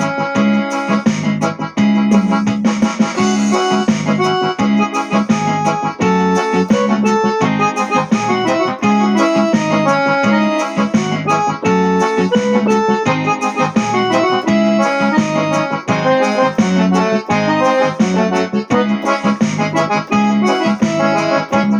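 Instrumental intro of a Brazilian gospel song, led by an electronic keyboard playing a melody over sustained chords.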